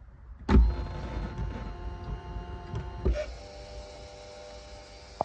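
BMW Z4 E85 convertible roof hydraulic pump motor running with a steady whine. It starts with a sharp click about half a second in, gives another click around three seconds in, and then runs on more quietly. The motor is spinning but the roof does not move, because the pump has no hydraulic oil.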